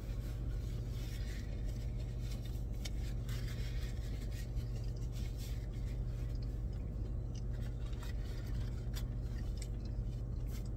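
A man chewing a mouthful of chicken sandwich with his mouth closed, with faint short clicks and crackles. Under it runs a steady low hum of the car cabin.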